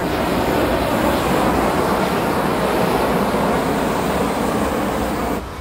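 Handheld gas torches blasting flame onto a large hot glass sculpture: a loud, steady rushing noise that drops off abruptly near the end.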